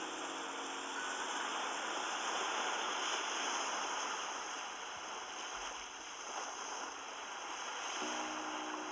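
Sea waves washing onto the beach, a steady rush of surf that swells and ebbs slightly. Soft background music with sustained notes comes back in near the end.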